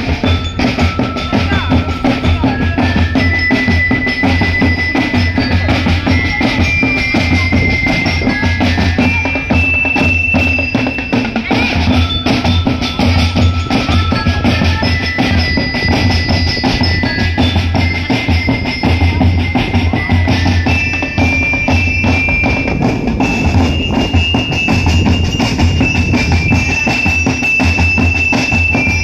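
Music with a steady, pulsing drum beat and a melody of long held notes.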